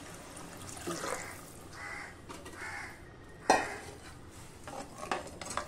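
Water running into a pressure cooker of tomato masala, then a metal ladle stirring it and knocking against the pot, with one sharp knock about midway and a run of short scrapes and clinks near the end.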